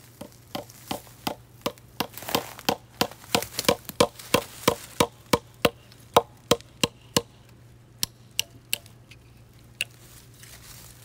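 Rapid series of sharp knocks, like strikes on wood, about two or three a second, thinning out to a few scattered knocks near the end.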